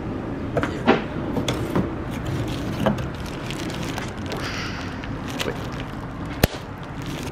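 Parts being handled: a cone air filter in plastic wrap taken out of a cardboard box and turned in the hands, giving scattered light knocks and rustles over a steady low rumble, with one sharp click about six and a half seconds in.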